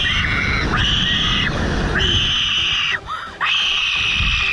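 A rider on a slingshot ride screaming: four long high-pitched screams one after another, with a low rumble underneath.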